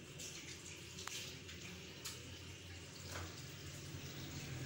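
Faint background room noise: a steady low hum with a few soft clicks about a second apart.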